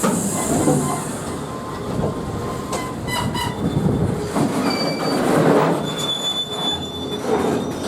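Freight train carrying RORO trucks braking to a stop, its wheels and brakes letting out short, thin, high squeals over the rumble of the wagons, with a quick run of metallic clanks about three seconds in.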